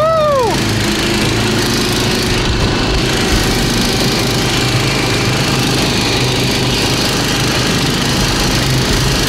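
Baltmotors Barboss Max motorized snow tow's small engine running steadily under load while towing a loaded sled over snow. A brief rising-and-falling tone with overtones sounds right at the start.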